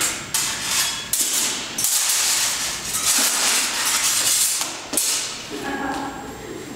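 Steel practice sabres from the 1850s Swedish army clashing again and again in free sparring, metal blades striking and scraping with short bright rings, several clashes a second in quick flurries.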